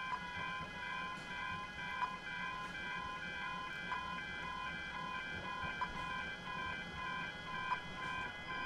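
Railway level crossing warning bells (Barker Technic Type 2) ringing continuously while the crossing is active, several alarms sounding together in steady, pulsing tones, with a short sharp tick about every two seconds.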